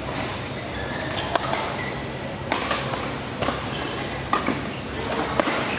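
Badminton racquets striking a shuttlecock in a doubles rally: about five sharp smacks, roughly one a second, over a steady low hum.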